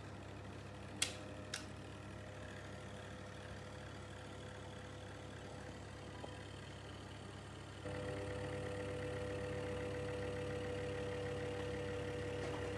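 BLACK+DECKER BHDC201 portable space heater's fan running with a steady hum. Two sharp clicks come about a second in, and about eight seconds in the hum grows louder and higher-toned, as if it had been switched to a stronger setting.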